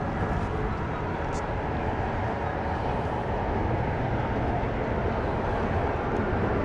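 Steady rumbling outdoor background noise with no distinct events.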